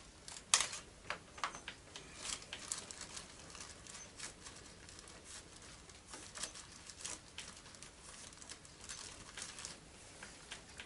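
Hands rummaging among small gearbox parts and tools: irregular light clicks, clinks and rustling, with one sharper click about half a second in.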